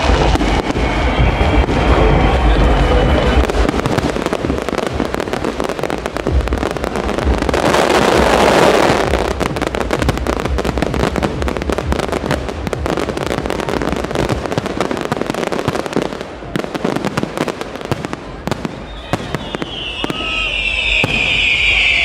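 Fireworks display going off: rapid crackling bangs and bursts, with festival music and its bass beat underneath at first, fading after a few seconds. Near the end a high, shrill whistling sound comes in over the crackle.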